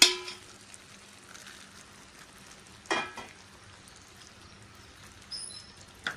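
Hot pan sizzling faintly as dissolved jaggery syrup is strained into mashed jackfruit pulp frying in ghee. Two ringing metal clinks of the utensils against the strainer and pan, one at the start and a second about three seconds in.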